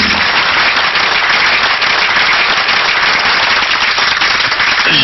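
Audience applauding: a dense, steady run of many hands clapping.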